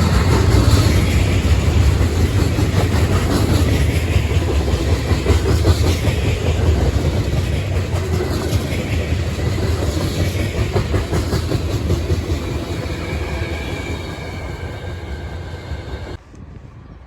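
Freight train cars rolling past: a steady heavy rumble with wheels clicking over the rail joints. It fades over the last few seconds, then cuts off suddenly near the end.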